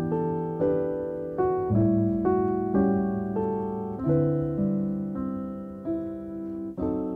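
Background music: a slow, gentle solo piano piece, with chords struck every half-second to a second and left to ring and fade.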